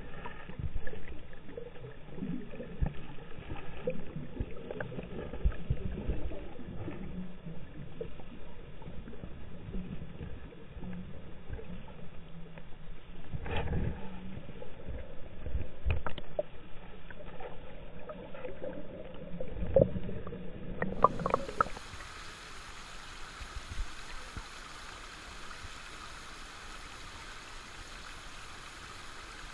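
Muffled underwater sound of wading in a shallow rocky river: low sloshing with irregular knocks and thuds from feet and walking sticks on the stones. About two-thirds of the way through it switches to the steady rush of shallow water running over rock ledges.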